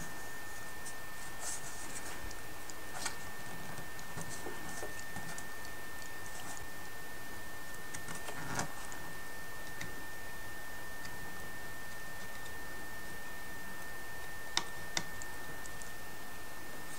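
Faint handling noises of hands working small wooden model parts and a plastic glue bottle on a cutting mat: a few soft taps, then two sharp ticks close together near the end, over a steady high-pitched whine and hiss.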